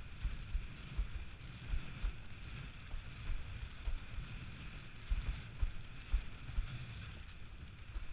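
Wind buffeting the microphone of an action camera on a windsurf boom, in uneven low gusts, over the steady hiss of water and spray rushing past a windsurf board sailing fast through chop.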